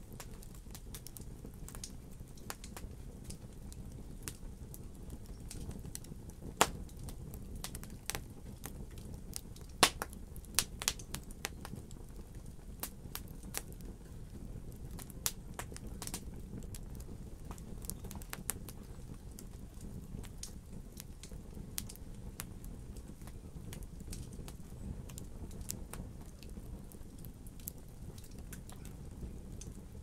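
Wood logs burning in a fireplace, crackling in sharp snaps over a steady low rumble of flame. The loudest snaps come about seven and ten seconds in, with a quick run of them just after.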